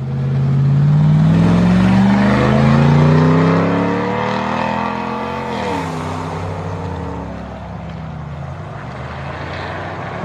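Pickup truck engine accelerating, its pitch climbing steadily for about five seconds, then dropping sharply at a gear change and running on more quietly at lower revs.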